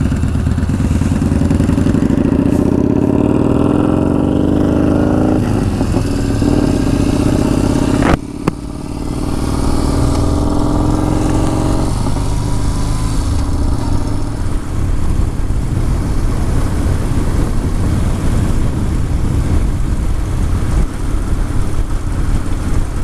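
Yamaha Bolt XV950R's air-cooled V-twin engine pulling hard under way, its pitch climbing and then dropping twice as it shifts up through the gears, with steady wind rush.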